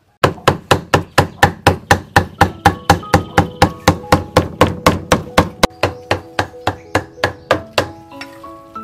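Cleaver chopping raw meat into mince on a thick round wooden chopping block: sharp, even strikes at about four a second, stopping near the end.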